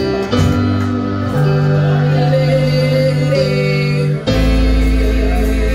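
Live worship music: a woman singing into a microphone over keyboard and electric guitar, with long held notes. A deep bass comes in suddenly about four seconds in.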